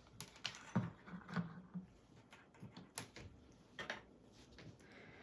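Faint, scattered light clicks and knocks of small objects being handled and set down.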